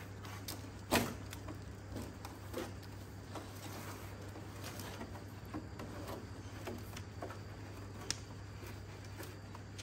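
Soapy sponge scrubbing and rubbing the fender of a small tractor: irregular wet rubbing with scattered light knocks, one sharper knock about a second in, over a steady low hum.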